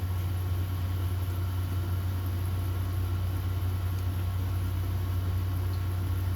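A steady low hum that does not change, with a faint hiss over it.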